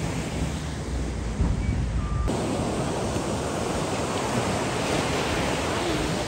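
Ocean surf washing onto a beach, a steady rush with wind buffeting the microphone. The sound changes abruptly a little over two seconds in.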